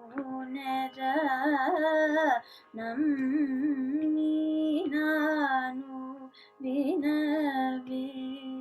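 Carnatic vocal singing with gliding, oscillating gamaka ornaments over a steady shruti box drone, heard over a video call. The voice comes in three phrases with short breaths between them, and is a tad feeble against the shruti box.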